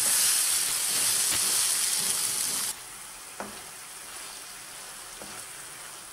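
Chopped onion, carrot and cucumber sizzling in oil in a frying pan, with a few faint knocks of stirring. About three seconds in the sizzle cuts off abruptly to a much quieter, low simmer as the vegetables stew in broth.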